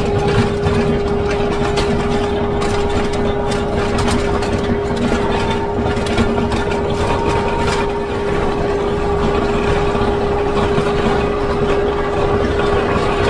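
Kubota MX5400 tractor's diesel engine running steadily as its rear blade pushes and scrapes snow, with a steady whine carried over the engine note.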